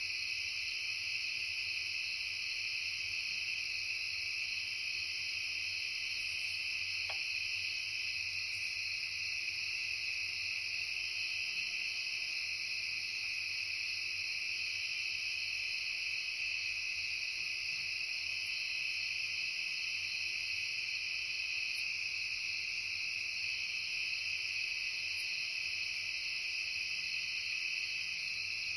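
Dense, steady chorus of crickets and other insects: several continuous layers at different pitches, unbroken throughout, with a few faint ticks in the second half.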